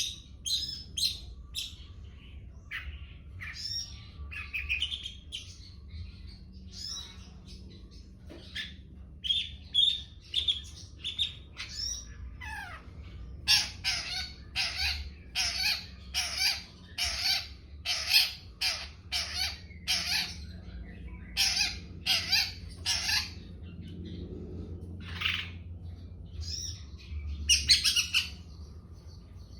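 Long-tailed shrike singing, the rapid 'trotol' style. It starts with varied chirps and short whistles, then from about halfway through gives a long run of harsh, evenly repeated calls, nearly two a second. A low steady hum runs underneath.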